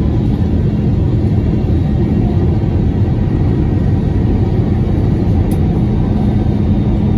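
Steady cabin noise of a jet airliner in flight, heard inside the passenger cabin: the turbofan engines and the airflow make an even, loud drone with a constant low hum.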